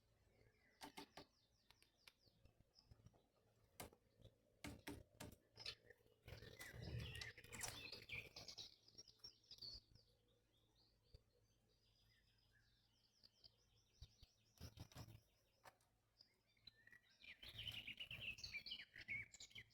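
Faint chirping of small birds in quick runs of high notes, strongest about a third of the way in and again near the end, with scattered soft clicks and taps between them.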